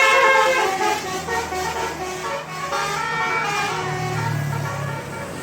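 Bus telolet horn playing a quick multi-note tune, loudest in the first second and then fading. Under it a bus engine runs low and steady, growing louder after about a second in.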